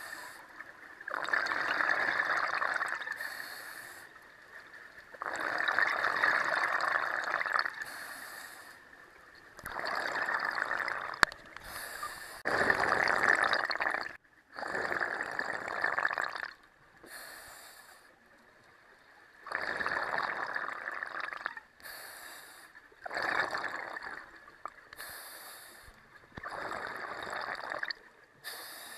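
Scuba diver breathing through a regulator underwater: a rush of exhaled bubbles every three to four seconds, with short hissing inhales in the gaps between.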